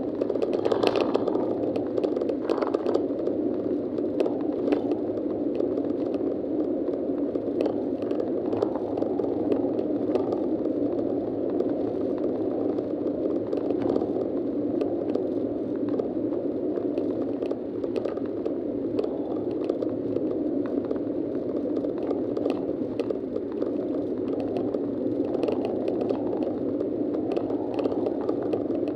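Steady driving noise inside a moving car's cabin, with light clicks and rattles scattered throughout.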